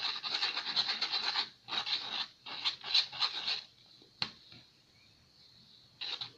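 Glue-and-detergent slime mixture being stirred, a utensil scraping and rubbing against its container in quick repeated strokes that stop after about three and a half seconds. A single sharp click follows about four seconds in.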